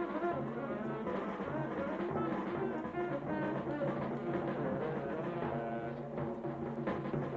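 Background film music: held pitched tones over a steady low drone, with a regular low pulse underneath.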